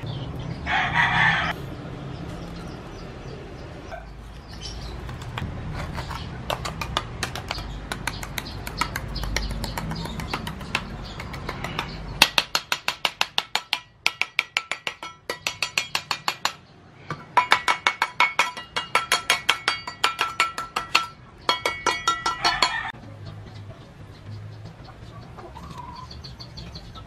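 A rooster crows briefly about a second in. Wet concrete is then scraped and worked in a round metal pan mold. From about twelve seconds in come long runs of rapid taps on the metal mold, several a second, each with the same ringing note, stopping after about ten seconds.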